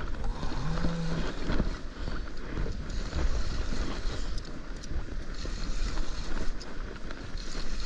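Wind buffeting the microphone in a steady low rumble, with bursts of water hiss over it a few times.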